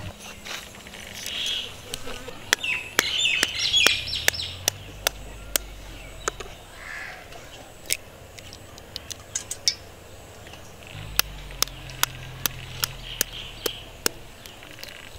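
Birds calling and chirping, over a run of sharp clicks and cracks from knife-cutting and egg cracking.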